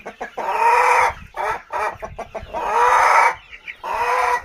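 Roosters crowing: three loud crows in a row, each about a second long, with short clucks between the first two.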